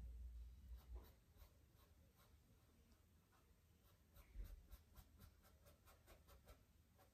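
Faint, soft scratching of a fine paintbrush stroking paint onto a painted panel, in short repeated strokes. There is a low bump about four seconds in.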